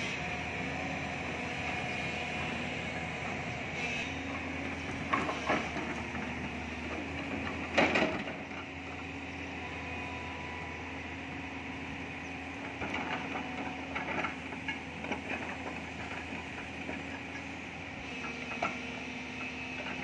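Tracked excavator's diesel engine running steadily while its steel bucket digs into rocky soil, with scrapes and knocks of the bucket on stones and earth, the loudest about eight seconds in and a cluster in the later part.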